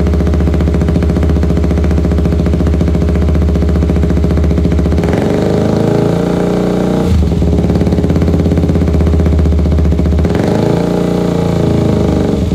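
KTM motorcycle engine idling through a short aftermarket slip-on exhaust, blipped twice: the revs rise about five seconds in and again around ten seconds in, each time dropping back to idle.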